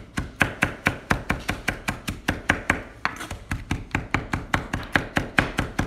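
Chef's knife rapidly chopping fresh herbs finely on a wooden cutting board: a steady run of sharp knocks, about five a second.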